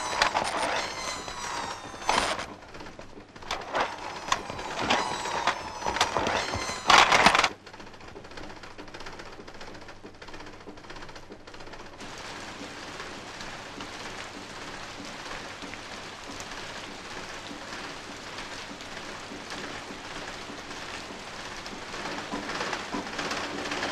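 Sewing machine running in fast, uneven bursts, its motor whine rising and falling over rapid clicking, for about seven seconds before stopping abruptly. After a short lull, a steady hiss of rain sets in and grows louder near the end.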